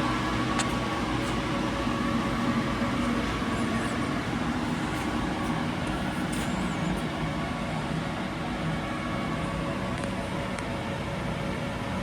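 DN Solutions SVM-4100 CNC vertical machining centre running, a steady mechanical hum with faint whining tones and a few light ticks.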